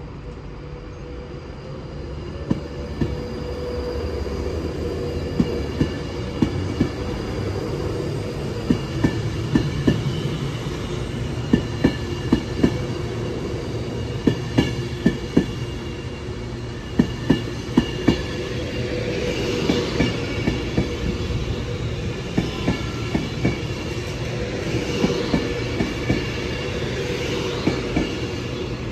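An Avanti West Coast Class 390 Pendolino electric train passes slowly along the platform. Its wheels click over rail joints in quick pairs as each bogie crosses, under a steady hum and a high whine that grows brighter in the second half.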